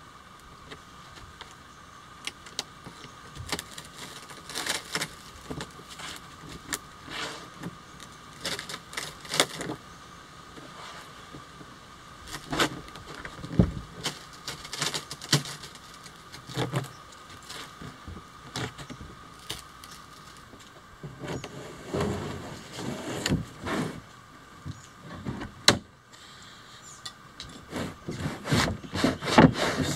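Cured fiberglass kayak shell being pulled and flexed off its waxed mold by hand: irregular crackling and popping clicks as it releases, with a few heavier knocks and thumps in the middle and near the end.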